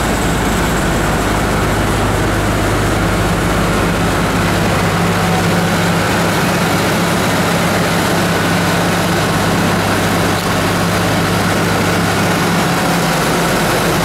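Deutz-Fahr C6205 combine harvester's diesel engine idling steadily, a low even hum under a wide hiss, with deeper steady tones settling in during the first few seconds.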